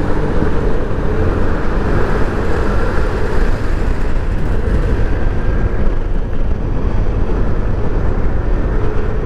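Yamaha NMAX 155 scooter's single-cylinder engine running at road speed, under a steady rush of wind on the microphone.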